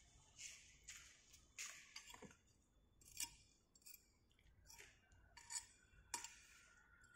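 Faint, irregular scraping and crunching, about nine short strokes, as a vent rod is pushed into rammed moulding sand to pierce air vents in a sand mould.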